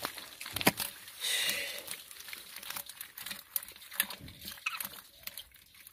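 Hands pulling and tearing at clumps of wet grass and mud: an irregular rustling crackle with scattered clicks. A sharp click under a second in is the loudest sound.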